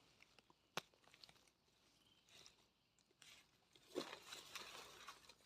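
Mostly near silence with faint rustling and crunching of forest-floor litter as termite mushrooms are handled. There is a sharp click about a second in and a louder rustle near four seconds in.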